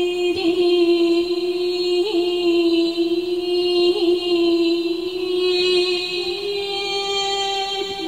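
Background music: one long, steady held note with a voice-like or synthesised timbre, shifting slightly higher about six seconds in.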